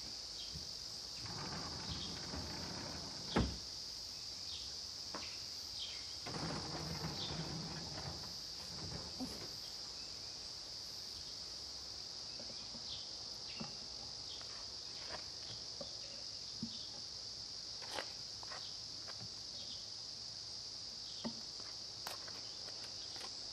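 A steady, high-pitched chorus of summer insects, with soft scrapes and light clicks over it and one sharper knock about three seconds in.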